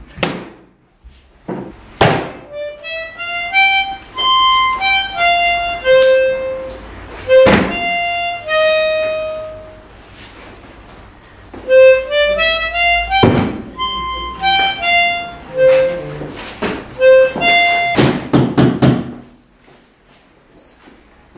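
A short melody played on a free-reed instrument, a run of stepping notes and held tones, played as two similar phrases with a pause of about two seconds between them. Loud knocks fall among the notes, and a quick cluster of knocks comes near the end.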